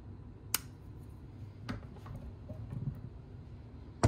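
Locking pliers being handled and adjusted: one sharp metallic click about half a second in, then a few fainter clicks and light knocks, and a louder knock at the very end.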